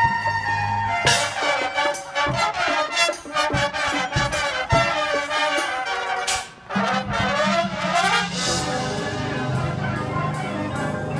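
High school marching band brass and percussion playing. A loud full-band hit about a second in leads into a fast, busy passage with drum strikes. After a brief drop about two-thirds of the way through, a rising run opens into sustained brass chords.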